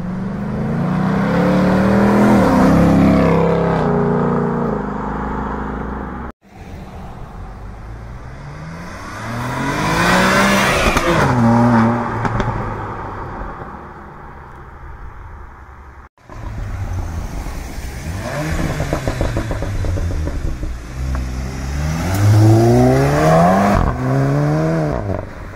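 Performance cars accelerating hard away one after another, engines climbing in pitch and dropping back at each upshift, several gear changes per car. The sound comes in three separate passes, each breaking off abruptly.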